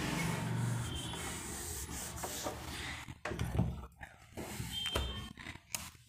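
A steady rubbing, scratching noise for about three seconds, followed by a few light clicks and knocks.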